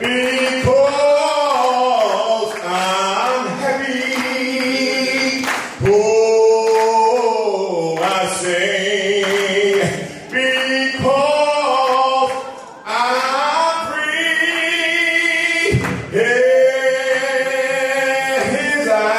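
Singing in slow phrases with long held, gliding notes and short breaks between phrases.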